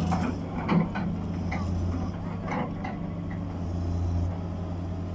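Heavy diesel engine of the recovery machinery running with a steady low drone, swelling a little until about four seconds in, with a few short knocks and clatters over it.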